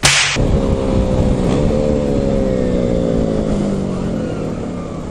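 Motorcycle engine running under way, its note climbing slightly and then easing down slowly as the bike slows, with wind rumble on the helmet microphone. A short rush of noise at the very start.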